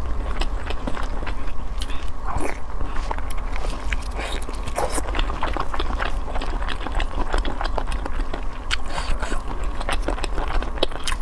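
Close-miked mukbang eating: biting and chewing food, with a dense run of crisp clicks, crackles and smacks over a steady low hum.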